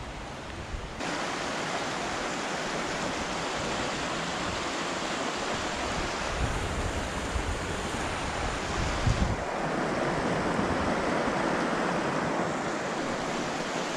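Steady rush of creek water tumbling over rocks in a shallow riffle, starting suddenly about a second in.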